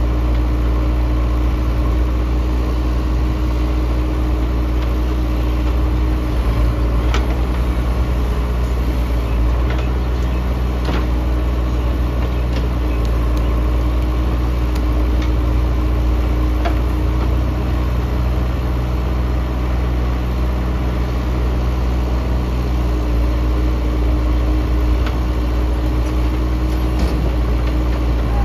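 JCB 3DX backhoe loader's diesel engine running steadily as the backhoe digs and swings mud, with a few short knocks scattered through.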